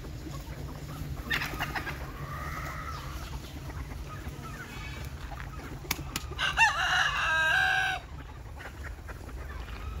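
Free-range desi chickens clucking, with a rooster crowing loudly about six and a half seconds in; the crow lasts about a second and a half and breaks off sharply. A steady low rumble runs underneath.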